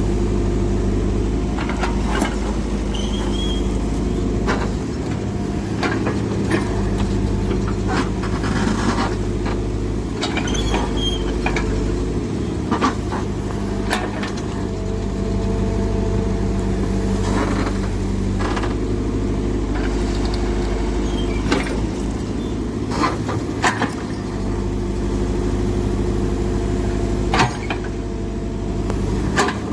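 Diesel engine of heavy earthmoving machinery running steadily, with scattered metallic knocks and clanks every few seconds and a few brief squeaks.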